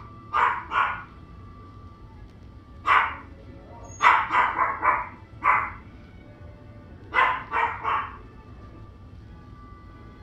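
Three-week-old puppies giving short, high yaps in little clusters: two near the start, one about three seconds in, a run of four or five around four to five and a half seconds, and three more around seven to eight seconds.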